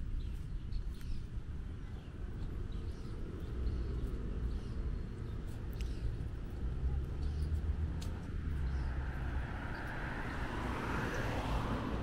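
City street ambience: a steady low traffic rumble with small birds chirping now and then, and a car passing close by that swells near the end.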